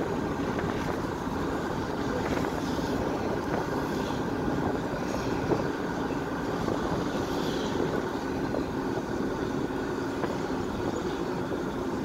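Steady road noise of a moving vehicle heard from inside it: an even rumble and rush without pauses.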